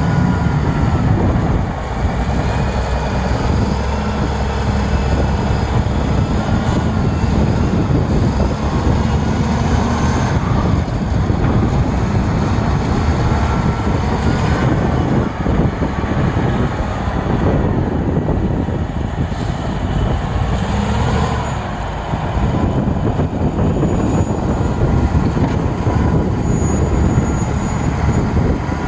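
Caterpillar 980B wheel loader's diesel engine running under load, a loud, steady rumble with a faint whine that rises and falls. It dips briefly about two seconds in and again near twenty-two seconds.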